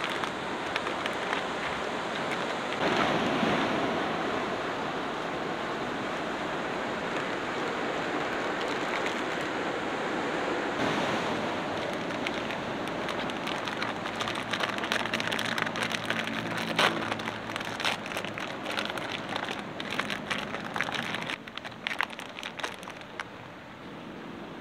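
Steady wash of surf and wind, with the crinkling and rustling of plastic instant-noodle packets and sachets being handled and torn open. The crinkling comes in quick crackles that thicken past the middle, then eases off near the end.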